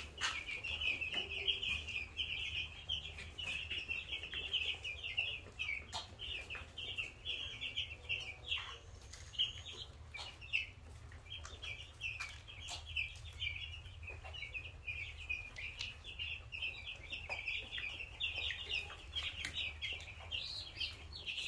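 A brood of six-day-old broiler chicks peeping nonstop, a dense chorus of short high calls, with a few sharp clicks now and then.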